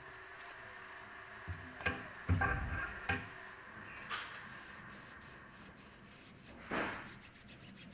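A cloth rubbing along a steel centrifugal-pump shaft clamped in a bench vise, wiping it clean. There are a few sharp knocks and clinks of handling about two to three seconds in, which are louder than the rubbing, and one short louder rub near the end.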